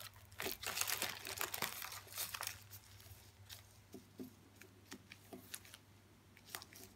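Plastic tobacco pouch crinkling as it is unfolded for the first two seconds or so, then faint scattered rustles and ticks as loose rolling tobacco is pinched out of it.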